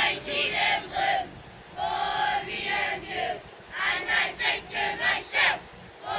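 A large group of boys and men chanting and cheering together in unison, in several loud shouted phrases with short pauses between them.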